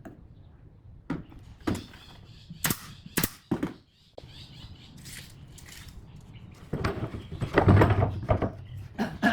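A series of sharp knocks and thuds: a handful spaced out over the first few seconds, then a denser, louder run of heavier thuds about seven to eight and a half seconds in.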